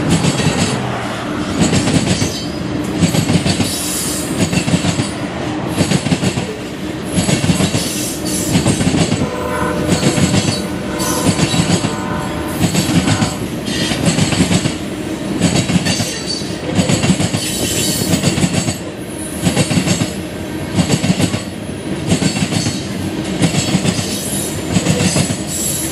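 CSX freight train's cars rolling past at speed, the wheels clacking over the rail joints in a steady rhythm of roughly one loud clack a second.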